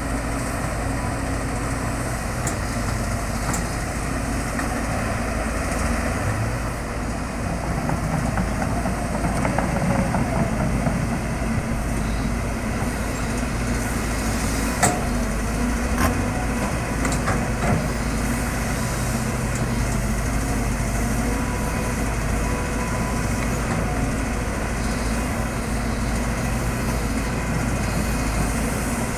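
Caterpillar excavator's diesel engine running steadily under load, with a few sharp knocks a little past halfway through.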